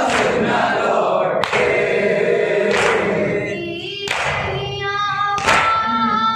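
Mourners chanting a noha in unison, kept in time by sharp chest-beating slaps (matam) about every second and a half. From about four seconds in, a single boy's voice leads the lament through the microphone.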